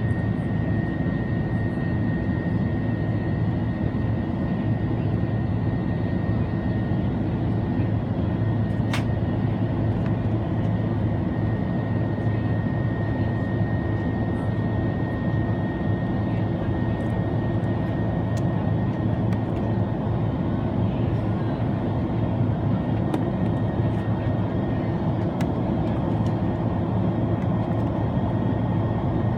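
Steady cabin roar of an Airbus A330-300 in flight, engine and airflow noise heard from inside the cabin, with a faint steady high whine on top. A single sharp click about nine seconds in.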